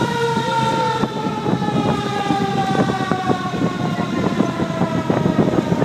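Fire truck siren winding down in one long, slowly falling tone, heard from aboard the truck over the rumble of the ride and the wind.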